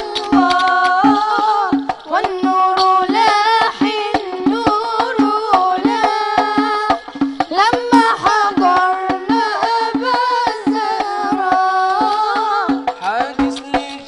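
Arabic devotional chant (inshad) in praise of the Prophet, sung into microphones by young voices in a wavering, ornamented melody, over a steady hand-percussion rhythm.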